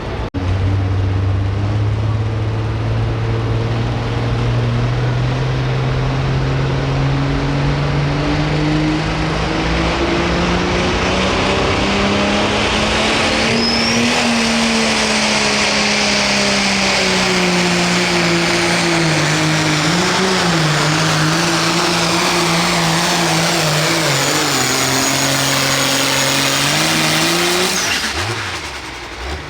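Hot farm pulling tractor's 510-cubic-inch engine running at full power under load as it pulls the sled. Its pitch climbs steadily for about the first thirteen seconds, wavers and sags as the load builds, rises briefly, then drops off near the end.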